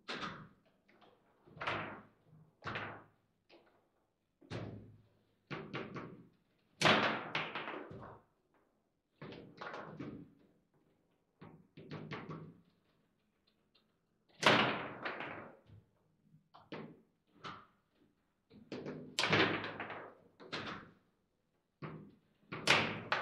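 Foosball table in play: the ball is struck by the players' figures and rebounds off the table walls, and the rods clack, giving an irregular string of sharp knocks and thunks. A few hits stand out loudest, about a third of the way in, around two-thirds of the way in and near the end.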